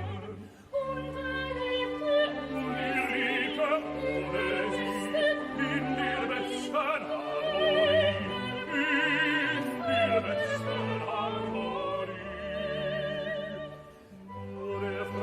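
Operatic singing with wide vibrato over an orchestra, with short breaks about half a second in and near the end.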